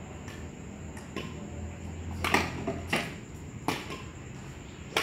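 Badminton rackets striking a shuttlecock during a rally: a string of sharp thwacks, the loudest a little over two seconds in, followed by two more at roughly second-long gaps.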